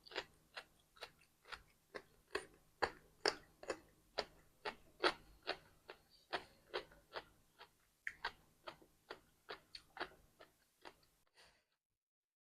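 Close-up crunching and chewing of pickled garlic stems, a steady run of crisp crunches about two to three a second that stops about eleven seconds in.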